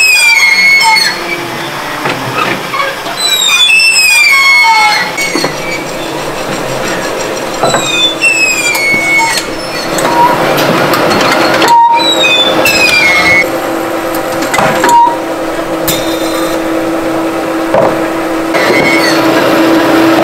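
Clay-slicing machine in a pottery factory cutting extruded clay logs into discs, its metal frame squealing three times with a falling pitch, about every four to five seconds. From about halfway a steady machine hum runs under it, with a few sharp knocks.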